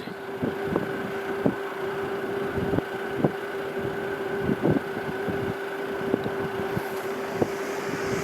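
Steady hum of the van's heater running, with irregular soft thumps of wind gusts buffeting the van and microphone about once or twice a second.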